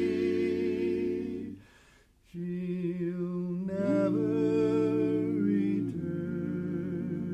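Barbershop quartet singing a cappella in close four-part harmony, holding long chords. The chord breaks off about a second and a half in, then a brief gap. The singing resumes with a chord whose voices slide up into place and ring, then moves to another held chord near the end.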